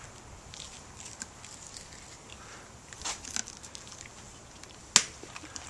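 A horse crunching a carrot treat: a few crisp crunches about three seconds in, then one sharp snap about five seconds in.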